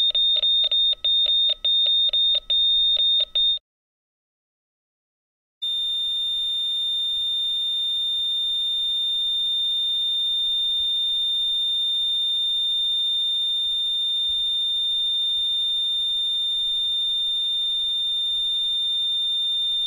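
Hospital heart monitor beeping rapidly on a high tone, the beeps stopping a few seconds in. After about two seconds of silence it sounds one continuous flatline tone, the monitor's signal of no heartbeat.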